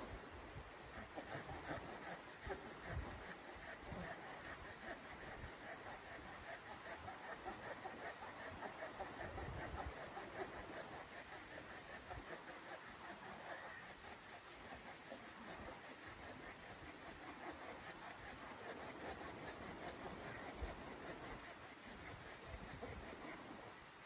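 Folding hand saw cutting through a log, with a steady rasp of back-and-forth strokes through the wood.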